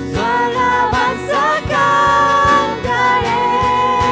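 Live Christian worship music: a singer's voice over held chords and a steady drum beat. The voice drops out about two-thirds of the way through while the band carries on.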